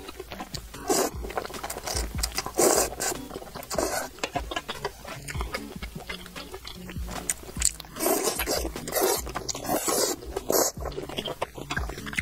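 Close-miked eating sounds: noodles in spicy broth slurped in several noisy sucks of up to a second each, with wet chewing and mouth clicks between them.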